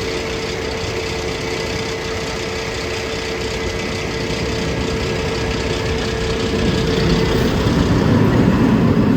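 Steady engine-like machine running with a constant hum, growing louder and rougher over the last two seconds.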